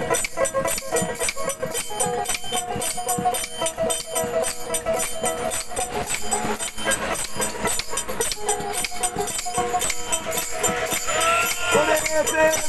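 Bengali folk instrumental passage: a dotara is plucked over a fast, steady beat of wooden khartal clappers and small mandira hand cymbals. A man's singing voice comes in near the end.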